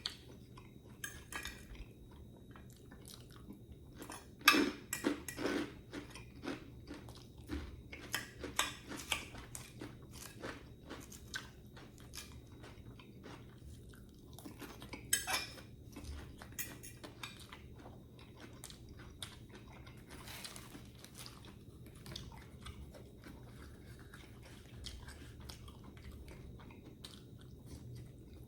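Close-up eating sounds: chewing and crunching food, with scattered clicks and taps throughout. The loudest crunches come about four and a half seconds in and again about fifteen seconds in.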